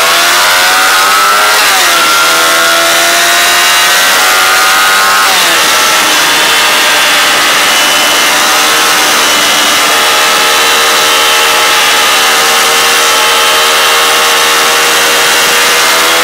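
Motorcycle engine heard from on board at speed, its pitch climbing, dropping sharply about two seconds in and again about five seconds in, then rising slowly and holding high, with a steady rush of wind and road noise underneath.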